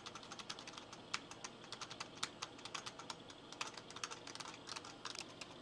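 Keys of a computer keyboard being pressed in quick, irregular succession, a faint run of many light clicks.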